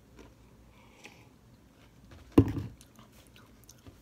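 Faint mouth sounds of a person drinking lemonade and chewing a pizza bagel, with one loud, dull thump about two and a half seconds in.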